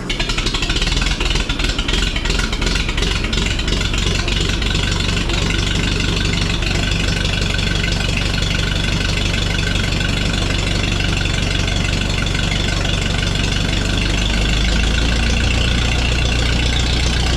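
Minneapolis Moline ZB tractor engine running just after starting, a little uneven for the first couple of seconds and then settling into a steady idle. About 14 seconds in, its low rumble gets stronger.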